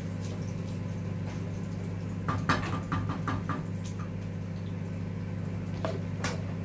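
Kitchen handling sounds over a steady low hum: a short run of clinks and scrapes of a utensil against a pan and plate at the stove about two to three and a half seconds in, and two more sharp knocks near the end.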